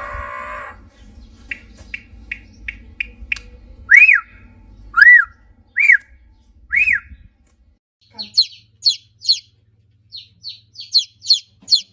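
Bird calls: a run of quick ticks, then four loud whistled notes about a second apart, each rising and falling. Near the end come rapid high chirps in quick groups of three.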